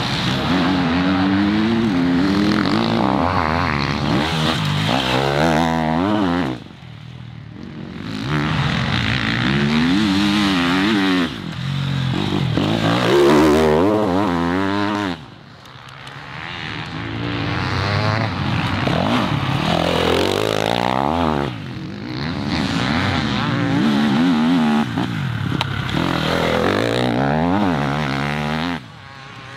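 Enduro dirt bikes revving hard on a climb, the engine note rising and falling again and again with throttle and gear changes, in several separate passes with brief drops in between.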